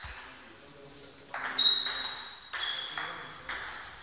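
Table tennis rally: the ball clicks off the bats and bounces on the table, about every half second to second. Each hit leaves a short, high ringing ping.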